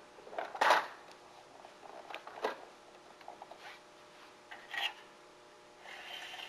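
Side cladding pieces of a skylight being slid under the head flashing: scattered scrapes and clicks of thin metal, the loudest a sharp scrape just under a second in, with a softer rub near the end.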